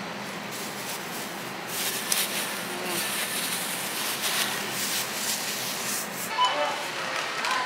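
Supermarket background noise: rustling and handling sounds, rougher in the middle, with faint voices coming in near the end.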